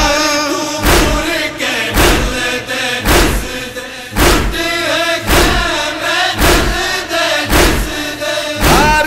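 Male voices chanting a noha, a Shia lament, in unison, with a heavy chest-beating (matam) thump keeping the beat about once a second.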